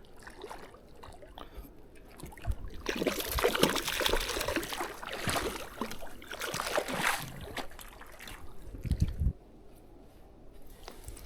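Water splashing and sloshing in irregular spurts as a hooked trout thrashes at the surface while it is landed. The splashing stops a couple of seconds before the end.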